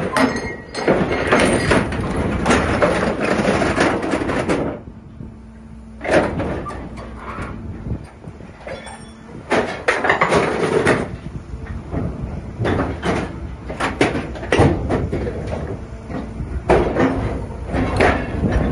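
Scrap metal from a fork truck being crushed and dragged through an industrial scrap-processing machine: loud metallic grinding and clanking in bursts a few seconds apart, the first lasting about five seconds, with a faint steady machine hum between them.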